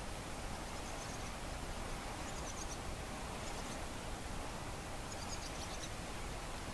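Steady soft wash of the calm Baltic Sea, with faint high chirps a few times.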